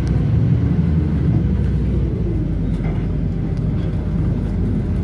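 Bus engine and road noise heard from inside the moving bus: a steady low drone.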